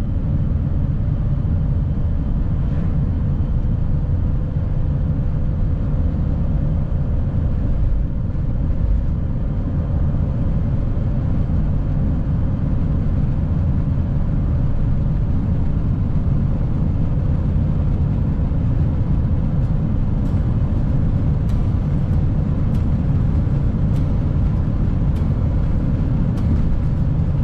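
Steady low rumble of tyre and engine noise inside a vehicle cruising at highway speed.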